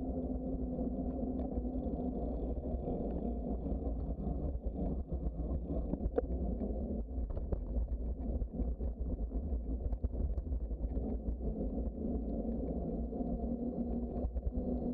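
Steady wind buffeting and tyre rumble from a bicycle rolling along a paved trail, heard on a bike-mounted camera's microphone, with a low steady hum underneath and a few light ticks.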